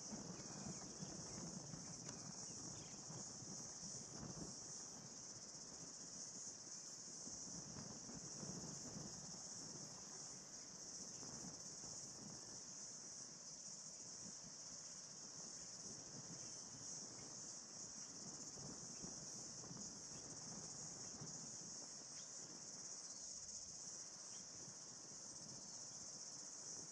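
A steady, high-pitched insect chorus, unbroken throughout, over a faint low rumble.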